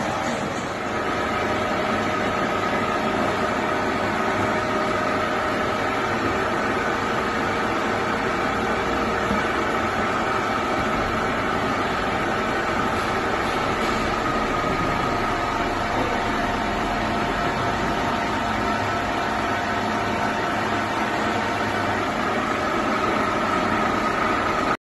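Stainless steel conveyor fryer with a mesh belt running: a steady mechanical hum with a steady high tone over it. It cuts off suddenly near the end.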